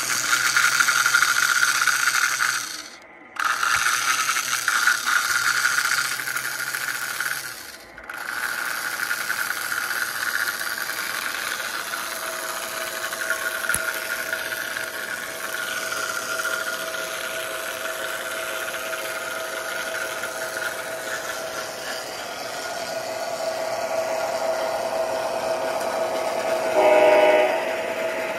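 Lionel 3927 track-cleaning car running on O-gauge track, its motor-driven scrubbing wheel and cleaning pad whirring and rattling along the rails, cutting out briefly about three and eight seconds in. A steady motor whine grows louder as the MTH diesel locomotive comes close, and near the end the locomotive's electronic horn sounds once.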